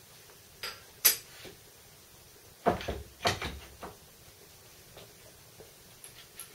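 Scattered metal clicks and knocks as a hex key and parts are handled against a small milling machine's table and saddle: a sharp click about a second in, a louder cluster of clunks from about two and a half to four seconds in, then a few light ticks.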